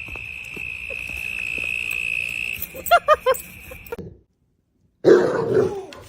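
A dog gives four quick high yelps about three seconds in, over a steady high-pitched tone that stops soon after. After a brief silence comes a louder, wavering cry.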